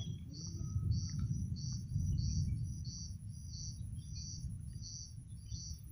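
Crickets chirping in a steady rhythm, about two chirps a second, over a low rumble.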